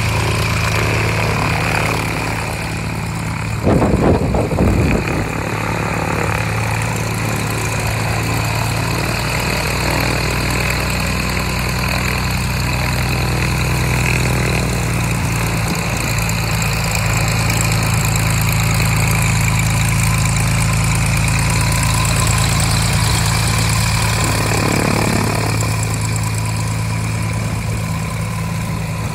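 An engine idling steadily with a low hum, with a brief rush of noise about four seconds in.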